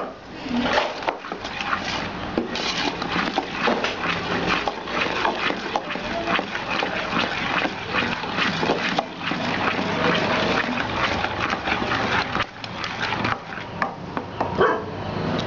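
A wooden spoon beating thick cake batter of butter, sugar and flour in an aluminium bowl: a steady run of scraping, slapping and knocking against the metal. Near the end, a sharp tap as an egg is cracked over the bowl.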